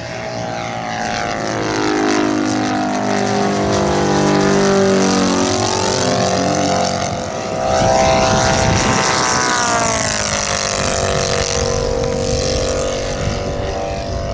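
Radio-controlled scale model Spitfire flying past, its motor and propeller giving a continuous note. The pitch falls over the first few seconds, rises again about halfway through and is loudest there, then falls away once more.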